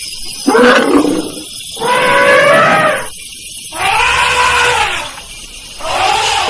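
Elephant trumpeting: four loud calls in a row, each about a second long and arching up and then down in pitch, the last one running on past the end.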